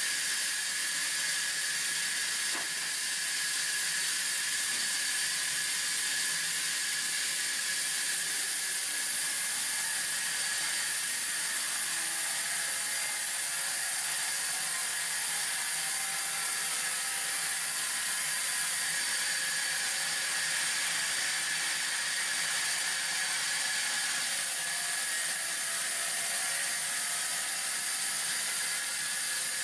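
Sawmill band saw cutting along a timber beam: a steady hissing rasp of the blade in the wood over a constant high whine, running without a break.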